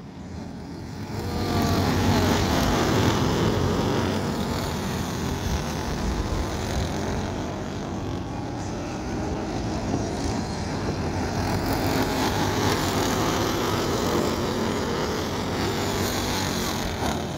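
A pack of racing karts' engines speeding up, with a rising whine about a second and a half in, then running steadily as the karts race around the dirt oval.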